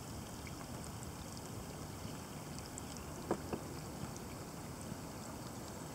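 Light rain shower on a calm river: a few scattered raindrops plinking, four of them in the middle stretch, over a steady low rumble of wind on the microphone.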